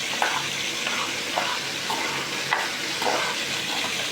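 Meat and onions sizzling as they fry in oil, with a spoon scraping or knocking the pan a handful of times as they are stirred while the onions brown.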